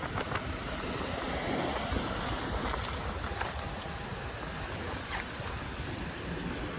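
Street ambience: a steady rushing noise of wind buffeting the microphone over distant traffic, with a few faint clicks.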